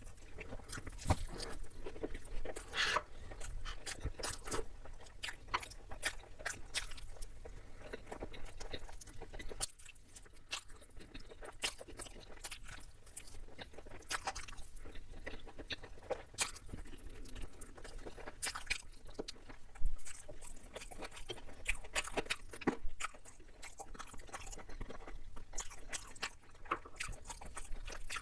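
A person chewing and biting into chicken biryani and mutton curry close to the microphone, with irregular crunches and wet clicks. The loudest bite comes just before the last third.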